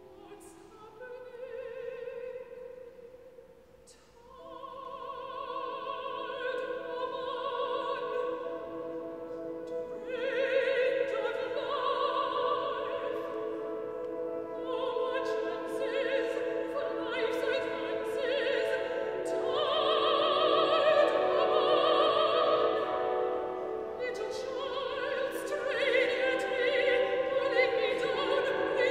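Mezzo-soprano singing an opera aria with wide vibrato over piano accompaniment. The opening few seconds are quiet, then the voice comes in louder at about four seconds and builds toward the end.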